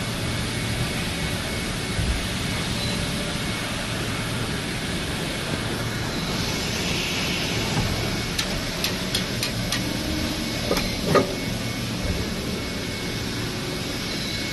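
Injection molding machine running with a steady hum and hiss and a faint high whine. A few sharp ticks come in the middle, then a single louder knock about eleven seconds in.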